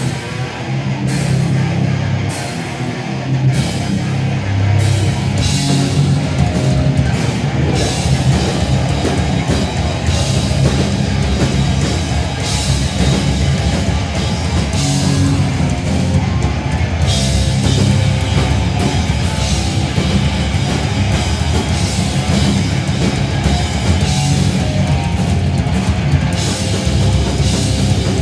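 Grindcore band playing live at full volume: distorted electric guitar, bass and a pounding drum kit with cymbals, heard from within the crowd.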